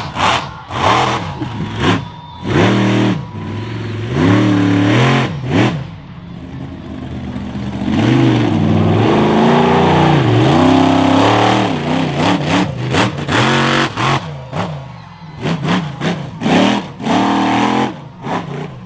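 Monster truck engine revving hard in repeated short throttle bursts, then held at high revs for several seconds in the middle while the truck spins, then bursts again near the end.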